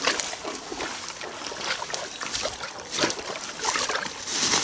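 Feet wading through shallow pond water, an irregular run of splashes.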